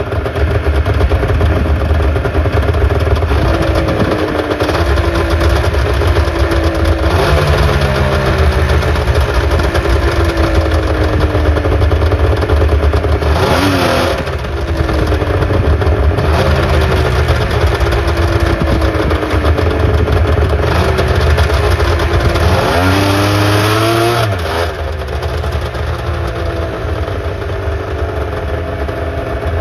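1996 Arctic Cat ZRT 600 snowmobile's three-cylinder two-stroke engine running just after a cold start at ten below zero, its pitch wavering unevenly. It revs briefly about halfway through and revs up again for a couple of seconds a little past two-thirds through.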